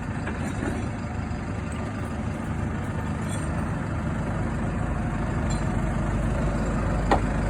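A truck engine running steadily to power its hiab hydraulic loader crane as it lifts a car, slowly getting louder. A single sharp knock near the end.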